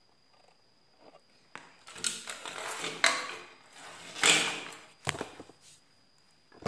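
Handling noise from an old TV's main circuit board being gripped and shifted: a few seconds of scraping and clattering with two sharp knocks and a low thump, then a click near the end. A faint steady high whine runs underneath.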